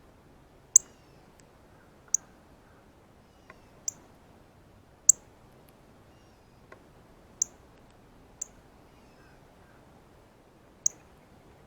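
Male northern cardinal giving its feeding chip call: about seven short, sharp, high chips, single and spaced irregularly a second or two apart.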